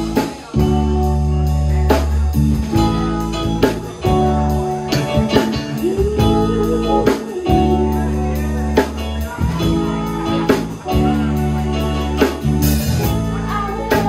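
Live band playing a slow R&B groove: electric guitar lines over held keyboard chords and bass, with drum hits.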